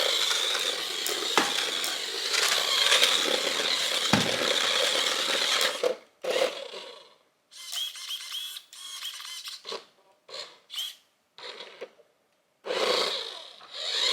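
WPL D12 remote control truck's small electric motor whining under throttle, with its tyres and body scraping on a hard floor. It runs continuously for about six seconds, then comes in short bursts of throttle with pauses.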